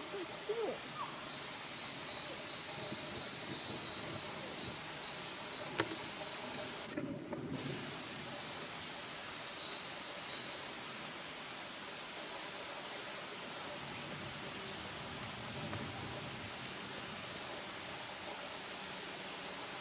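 Tropical rainforest ambience: a steady hiss with a regular train of short, high-pitched chirps, about three a second at first, slowing to a little over one a second from about nine seconds in. A lower chirping series runs alongside them for the first seven seconds.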